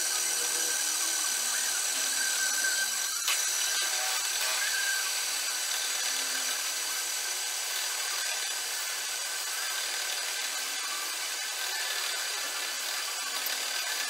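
Milling machine drilling into a metal camlock back plate with a twist drill: a steady cutting and spindle whir with a few constant high tones, and one sharp click about three seconds in.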